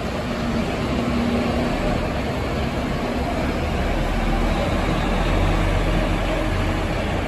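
Mercedes-Benz Tourismo coach's diesel engine pulling away at low speed, a steady low rumble that swells slightly about five seconds in.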